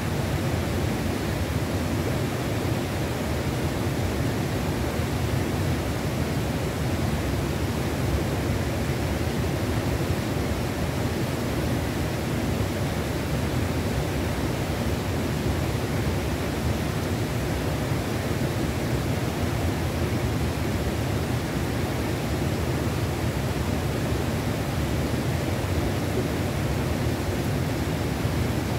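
Steady rushing of a mountain river's flowing water, an even noise with no breaks.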